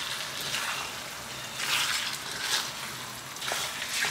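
Thick chili sambal sizzling as it fries in oil in a wok, with a spatula scraping and stirring through it in about four strokes.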